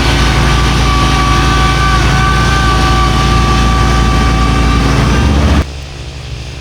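Tractor engine running loud and steady while driving a snowblower, with a high whine over the engine note. It cuts off abruptly a little over five seconds in, leaving quieter wind noise.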